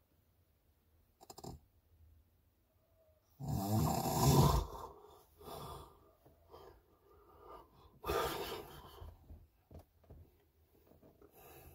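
A sleeping person snoring, picked up by a phone's microphone inside a truck cab: two snores about four seconds apart, the first the louder.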